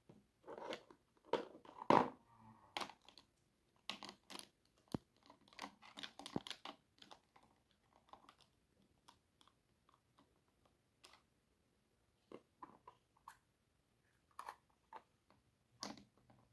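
Hard plastic toy kitchen pieces (pots, pans, lids and utensils) handled and set down on a plastic toy stove: irregular clicks, clacks and light knocks, the loudest in the first two seconds.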